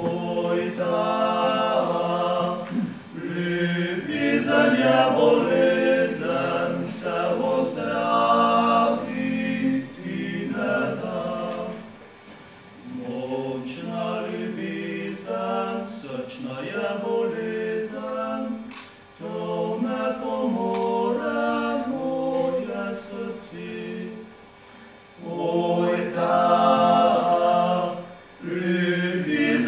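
Male vocal quartet singing a Slovenian folk song a cappella in close harmony, in phrases of a few seconds broken by short pauses for breath.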